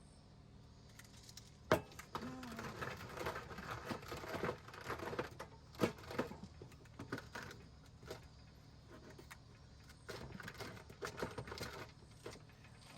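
Small objects being handled: scattered clicks, light knocks and rustling, with two sharper clicks, one about two seconds in and one about six seconds in.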